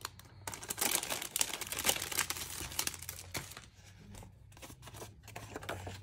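Clear plastic packaging crinkling and crackling as it is handled and pulled off a card, then quieter, sparser paper rustling as the card and a note are slid out.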